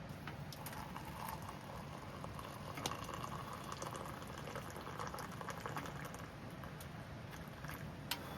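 Wood campfire crackling: a steady bubbling hiss with scattered sharp pops, the loudest about three seconds in and near the end.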